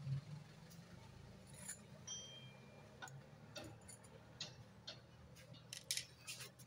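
Faint, scattered metallic clicks and clinks as the clutch parts are worked off a Honda Supra X 125 engine by hand, several close together about six seconds in.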